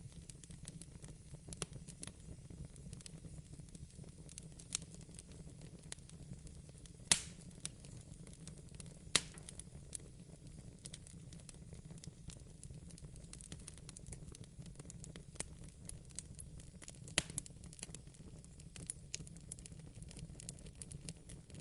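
Wood fire burning in a fireplace, crackling: scattered sharp pops and snaps over a steady low rumble of the flames. A few louder pops stand out about a third of the way in, just before halfway, and again about three-quarters through.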